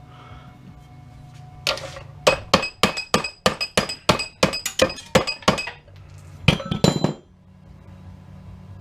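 Hammer striking metal: about a dozen sharp, ringing clinks at roughly three a second, then two more a moment later, as parts of a steel safety-switch box are knocked apart to free its copper bars.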